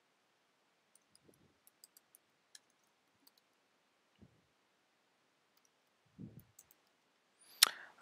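Faint, scattered clicks of computer keyboard keys being typed, with a few soft low thuds and one louder click just before the end.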